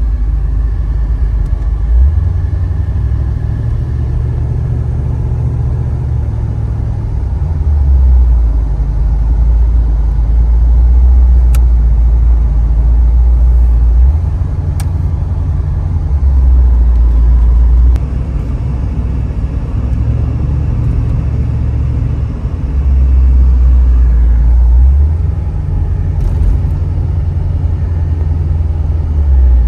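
Oldsmobile Delta 88 on the move: a steady low rumble of engine, exhaust and road noise that swells and drops back every few seconds.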